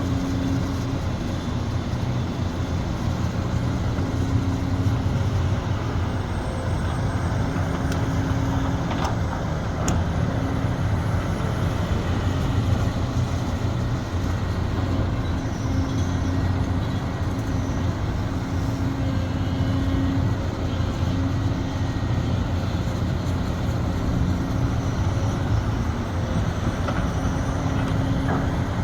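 Sumitomo SH370LHD-6 excavator's diesel engine running steadily under working load, with a low hum that strengthens and eases every couple of seconds.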